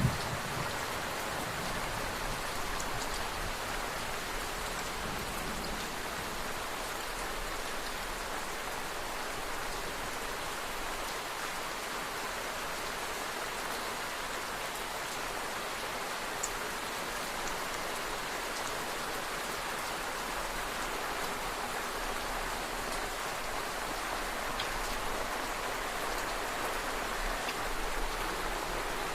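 Steady rain falling, an even hiss with an occasional single drop ticking out.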